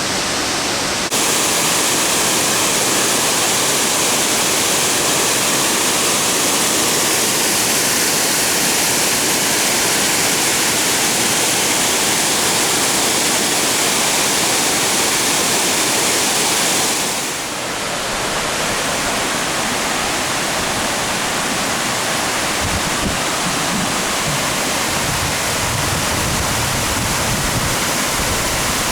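Loud, steady rushing of a waterfall on a mountain brook. The rush changes character suddenly about a second in and again around seventeen seconds.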